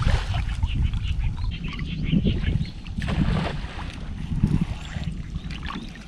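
Water sloshing and splashing around a person wading waist-deep while hauling in a thrown cast net by its rope, with wind on the microphone. A few louder splashy surges come about two, three and four and a half seconds in.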